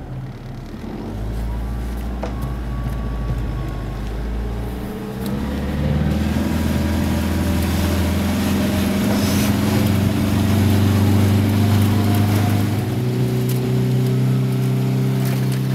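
A 4x4's engine running, heard from inside the cabin: a steady low drone that gets louder and steps up in pitch about five seconds in, then shifts again near the end, as the vehicle moves off.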